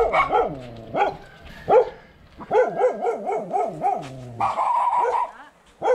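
Dogs barking behind a gate in quick runs of short barks, several a second, with a brief pause in between and a longer, higher sound near the end.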